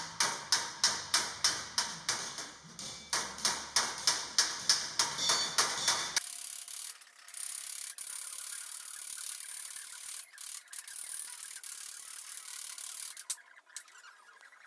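Body hammer striking a steel panel against a hand-held dolly: sharp, ringing metal blows about three to four a second, planishing a gas-welded seam. About six seconds in the blows stop abruptly and give way to a thinner hiss with faint irregular ticks.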